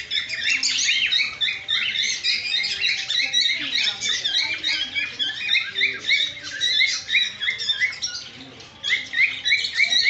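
A chorus of many small caged parrots chirping and chattering in quick, high calls, easing briefly about eight seconds in.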